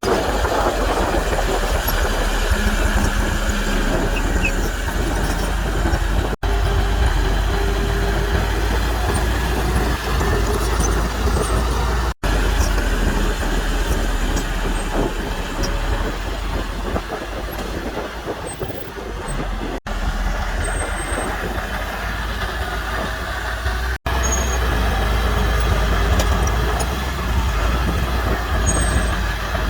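Heavy diesel earthmoving machinery running steadily with a deep engine rumble. It breaks off for an instant at several edit cuts.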